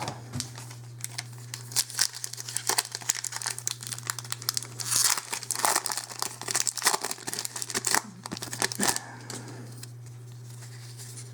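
Foil wrapper of a Magic: The Gathering booster pack being torn open and crinkled, a dense run of crackles that dies down about nine seconds in, over a steady low hum.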